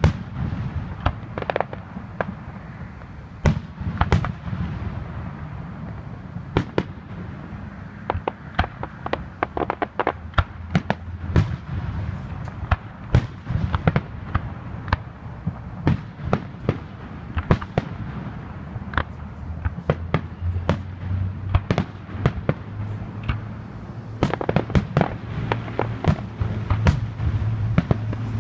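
Aerial fireworks shells bursting in the pre-finale of a display: a loud bang at the start, then dozens of sharp reports in quick, irregular succession over a steady low rumble. The bangs come thickest near the end.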